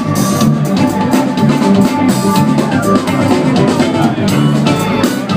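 Live funk band playing loudly through a club PA, heard from among the audience: drum kit with cymbals and bass drum, electric bass and electric guitar.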